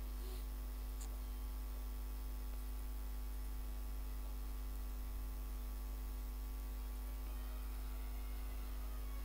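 Steady low electrical mains hum, with a faint click about a second in.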